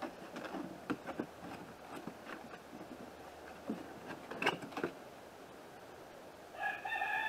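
Cardboard box of new struts being handled and opened, with scattered rustles and taps of the flaps and packing. Near the end a rooster begins a long crow, the loudest sound.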